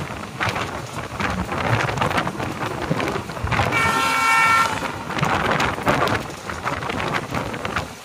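Running noise of a fast passenger train heard at an open coach door: wheels clattering over the rails under a steady rush of wind. About halfway through, a locomotive horn sounds a single blast of about a second.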